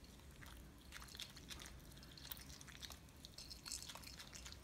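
Capuchin monkey chewing and biting on a chicken drumstick: faint, irregular little clicks and smacks of eating.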